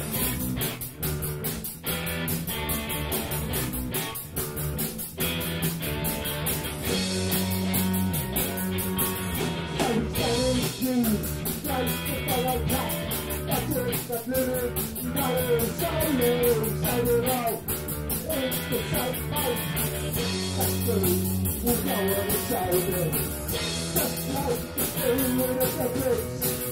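Live rock band playing electric guitars and a drum kit with a steady beat, and a man singing into the microphone from about ten seconds in.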